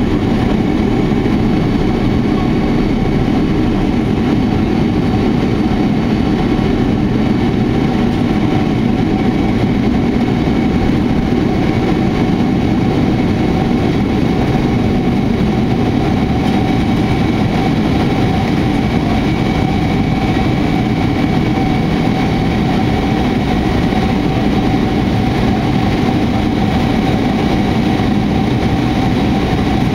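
Boeing 767 turbofan engines at takeoff thrust, heard from inside the cabin by the wing: a loud, steady engine noise with faint whining tones on top, unchanged through the takeoff roll, liftoff and initial climb.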